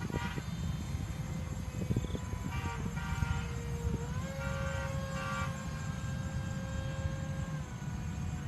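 Remote-control F-22 model plane's motor whining steadily, stepping up in pitch about four seconds in and dropping back near the end, over a steady low rumble.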